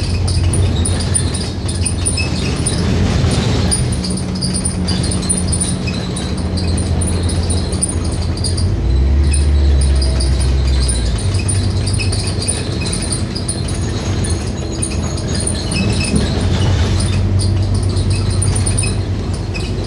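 Scania K310UD double-decker bus under way, heard from the upper deck: a steady diesel engine and drivetrain drone with road noise, which deepens for about two seconds near the middle. Over it runs a light, continual jingling rattle of loose fittings in the cabin.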